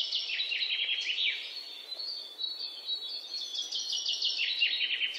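Small birds chirping: a rapid, continuous string of short, high, downward-sliding chirps over a faint steady hiss.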